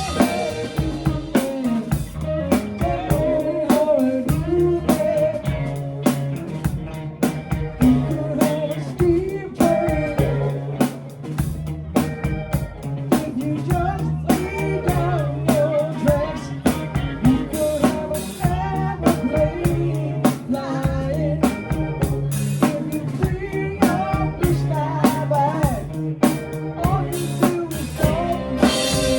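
A band playing a song with a steady rock beat on a drum kit, over a bass line and guitar, with a wavering melodic lead line.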